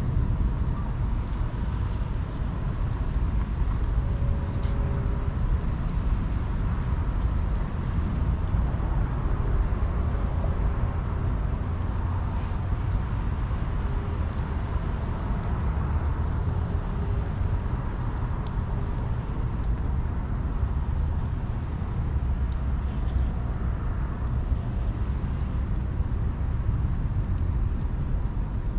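Steady rumble of wind on the microphone mixed with the hum of road traffic.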